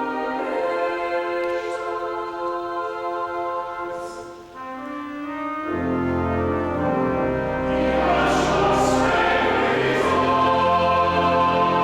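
A choir of men and boys singing with pipe organ accompaniment in sustained chords. About halfway through, a deep organ bass comes in, and the music then swells louder.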